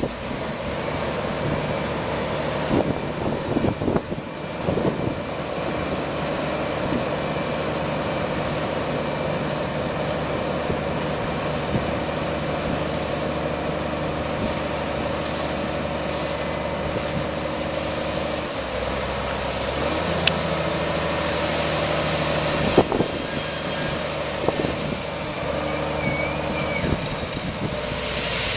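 Scania 410 tipper truck's 13-litre inline-six diesel running steadily while the truck unloads gravel. Its note changes about two-thirds of the way through.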